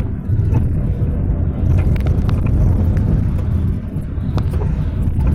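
Minibus driving, heard from inside the cabin: a steady low rumble of engine and tyres on the road, with a few short rattles or knocks from the body.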